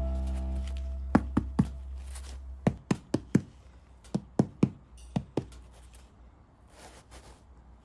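Fingers knocking on the crust of a freshly baked sourdough olive ciabatta loaf: about a dozen sharp, short knocks in quick groups of two or three.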